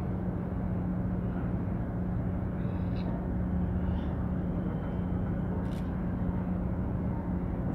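Steady low engine drone with a constant humming tone, heard across harbour water, with a few faint short high sounds in the distance.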